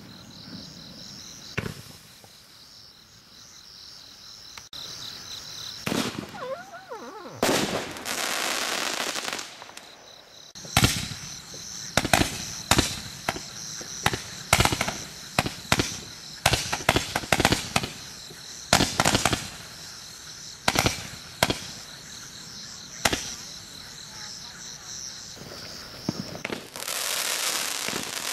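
TNT Aerial Power consumer firework barrage cake firing. There are hissing sprays as tails rise, and in the middle about twenty sharp bangs come in quick, uneven succession. More hissing trails start near the end.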